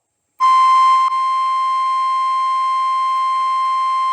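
NOAA Weather Radio 1050 Hz warning alarm tone: a single loud, steady, high beep that starts about half a second in and holds. It is the alert signal that precedes a tornado warning broadcast.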